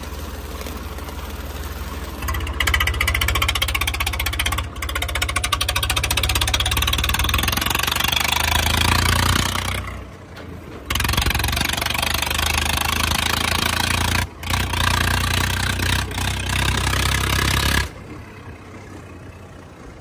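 Tractor diesel engine running as the tractor is driven. It gets louder under throttle about two seconds in, eases off briefly twice, around ten and fourteen seconds, then drops back to a quieter running near the end.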